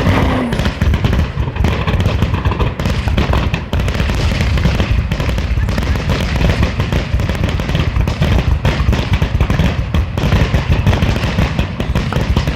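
Aerial fireworks going off in a rapid, dense barrage: many overlapping bangs and crackles with a deep booming low end, continuing without a break.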